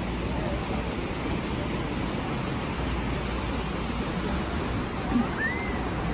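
Pacific Ocean surf breaking and washing up the beach: a steady, unbroken rush of waves.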